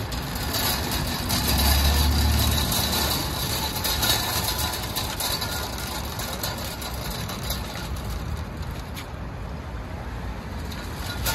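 Metal wire shopping cart rolling over parking-lot asphalt, a steady rattling noise, with cars driving past close by. A louder low rumble comes about two seconds in.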